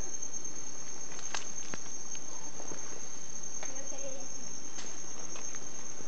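Insects droning steadily at one high pitch, with scattered faint clicks.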